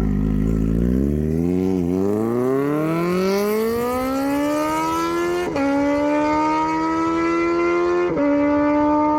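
Kawasaki Z800's inline-four engine, fitted with an SC-Project exhaust, accelerating hard: the pitch climbs steadily from low revs, then drops briefly at two upshifts, about five and a half seconds and eight seconds in, before pulling on at high revs.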